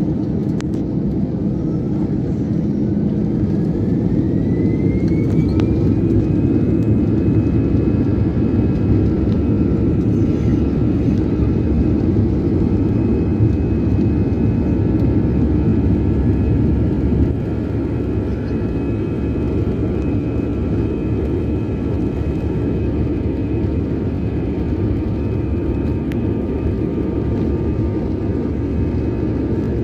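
Airbus A320 jet engines at takeoff power, heard inside the cabin: a loud, steady rumbling rush with a whine that rises in pitch over the first few seconds as the engines spool up, then holds steady through the takeoff roll and climb-out. The overall level drops slightly about halfway through.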